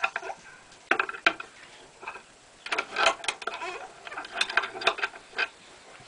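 Adjustable wrench clinking and scraping on the metal fittings of an oxalic acid vaporizer as its reservoir is loosened: scattered light metallic clinks in small clusters, about a second in, around three seconds, and again toward the end.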